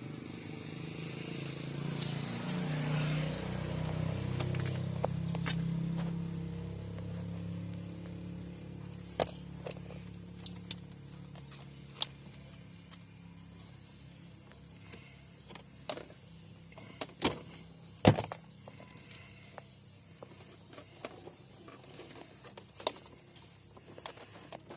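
Low vehicle-engine hum that swells and then fades away over the first ten seconds or so. Scattered sharp clicks and knocks of hand tools on wire run throughout, with a few louder knocks in the second half.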